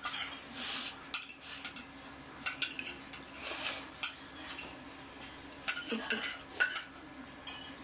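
A person slurping and chewing a mouthful of Lucky Me Pancit Canton instant stir-fried noodles, in irregular short wet bursts, the loudest slurp about half a second in.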